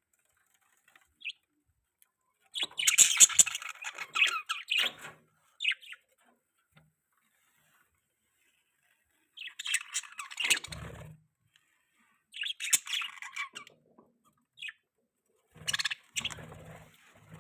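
Budgies chirping and chattering in several bursts of a second or two each, with short single chirps in between and quiet gaps.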